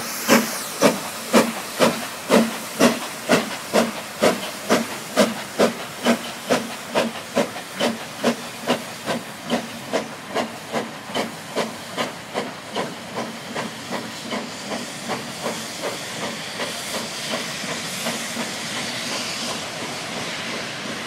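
Steam locomotive 6024 King Edward I, a GWR King class four-cylinder 4-6-0, working hard with a train, its exhaust beats regular at about two a second and getting slightly quicker. The beats fade as the engine draws away and, near the end, give way to a steady rolling noise of coaches passing.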